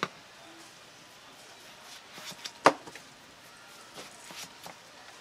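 Knife knocking on a cutting board as fruit is cut: a handful of sharp knocks, one right at the start, the loudest about two and a half seconds in, and a few lighter ones near the end.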